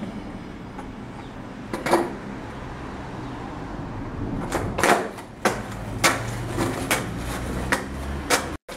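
Skateboard clacking on concrete during freestyle tricks: about seven sharp knocks of the deck and wheels landing, coming closer together in the second half, over the low rumble of the wheels rolling.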